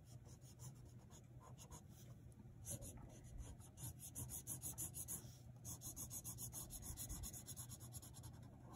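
Crayola SuperTips felt-tip marker scribbling on paper: quick back-and-forth strokes filling in a solid area, about six strokes a second. It is faint at first, gets busier about three seconds in, and stops briefly just after five seconds.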